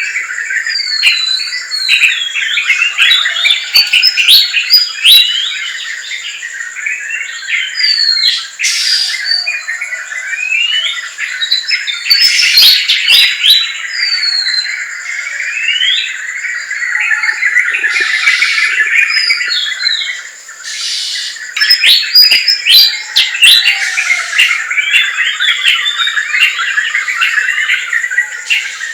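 Dense chorus of many birds chirping, calling and trilling over one another, with short rising and falling whistled notes. A steady high-pitched tone holds underneath throughout.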